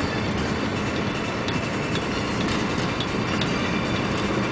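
A UD Trucks Quon diesel truck heard from inside its cab while driving: steady engine and road noise, with a few light clicks.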